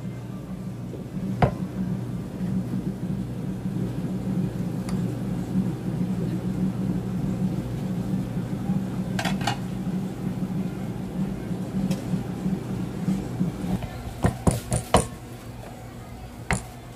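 Metal clacks of cast-iron bubble waffle irons being opened and handled: a single clack, a pair about 9 seconds in, a quick run of several near the end and one more just after. A steady low hum sits underneath and stops about 14 seconds in.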